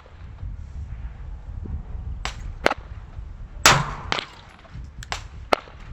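Gusty wind rumbling on the microphone. Through it come several sharp gunshots, the loudest a single pistol shot about three and a half seconds in that rings on briefly. The quieter reports come before and after it.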